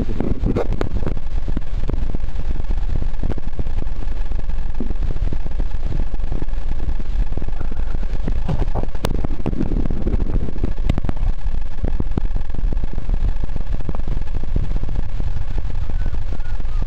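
Steady low rumble of water moving against a submerged camera's waterproof housing, with many scattered sharp clicks and crackles.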